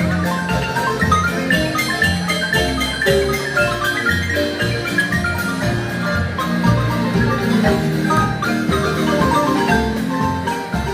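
Guatemalan marimba music: fast runs of short mallet-struck notes over repeated deep bass notes in a steady dance rhythm.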